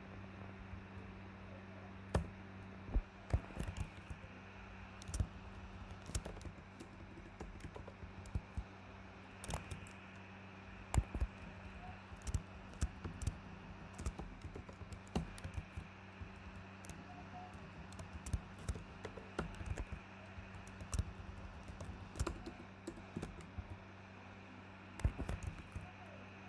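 Typing on a computer keyboard, keystrokes coming in short irregular runs, over a faint steady low hum.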